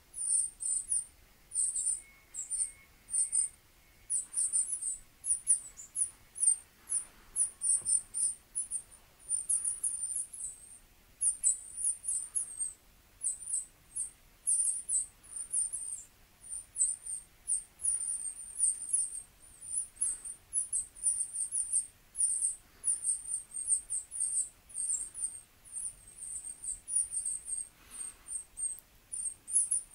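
Rapid, very high-pitched chirps and squeaks, several a second, playing from a tablet's speaker, from an animal video on the screen that the cats are watching and pawing at.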